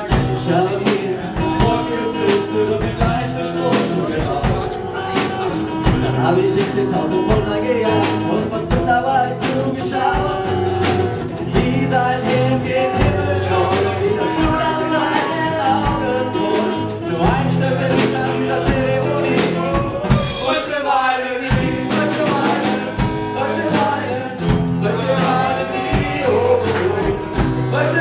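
Live acoustic band song: strummed acoustic guitar with a drum kit keeping the beat and a man singing into the microphone, with a short break about three quarters of the way through.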